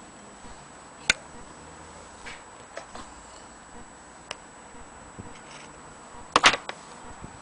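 Scattered sharp clicks and knocks of an antique Willcox & Gibbs sewing machine's metal body and parts being handled and tipped, with a single sharp click about a second in and a louder quick cluster of knocks near the end.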